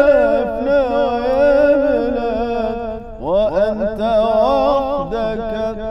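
A man singing an Arabic religious nasheed in a full, strong voice, drawing out a long ornamented melisma on a held syllable, then starting a new phrase with a rising scoop about three seconds in.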